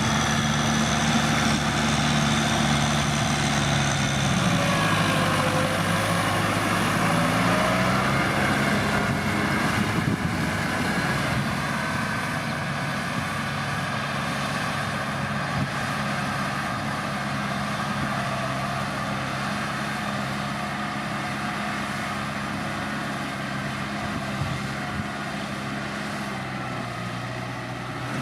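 Kubota M6040SU tractor's diesel engine running steadily while ploughing in mud. Its pitch dips and comes back up about four to eight seconds in, then holds even.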